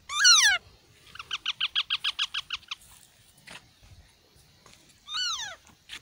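Parakeet chicks calling. A loud, harsh call falls in pitch, then comes a quick run of about a dozen short chattering notes, about eight a second. Near the end there is another falling call.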